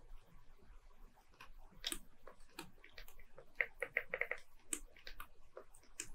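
Faint, scattered small clicks and taps, with a quick run of about half a dozen sharper clicks a little under four seconds in.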